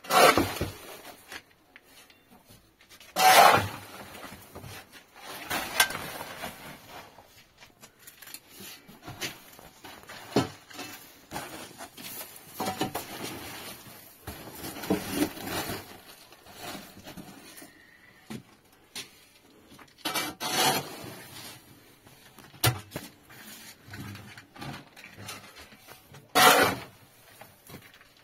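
Irregular handling sounds: several scrapes or rubs lasting about a second each, with a few sharp knocks in between.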